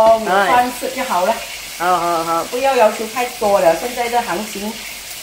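A woman talking over the steady sizzle of a pomfret pan-frying in hot oil.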